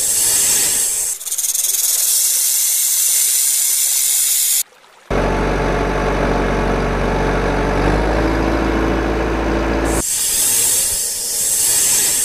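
Snake hissing sound effect, a steady high hiss, breaks off after about four and a half seconds. A truck engine sound effect follows with a low steady run, its pitch stepping up partway through, and cuts off after about five seconds, when the hissing returns.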